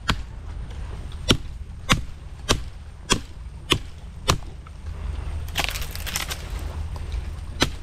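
Steady chopping blows on wood, about seven sharp strikes a little over half a second apart. They are followed by a couple of seconds of crackling rustle and one last blow near the end.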